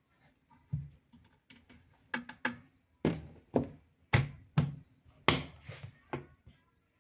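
A series of about ten sharp knocks and thumps at an irregular pace, the loudest in the middle, like things being handled and set down.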